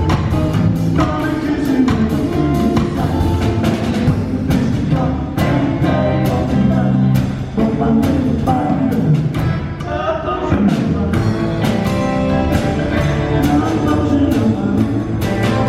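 Live rock band playing: drum kit keeping a steady beat under guitars and bass, with a singing voice.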